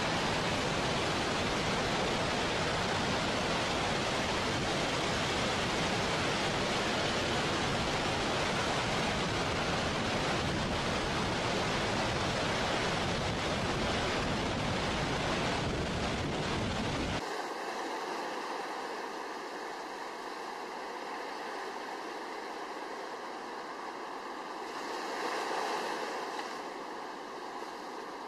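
Dam discharge: a deep, steady rush of water jetting off a dam's curved spillway lip. About 17 seconds in it changes abruptly to a thinner, quieter rush of water pouring down a stepped spillway into a river, with faint steady tones underneath.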